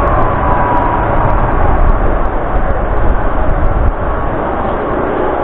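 Motorcycle riding along a city street: steady engine and road noise, heavy in the low end, dropping a little about four seconds in as it slows toward the curb.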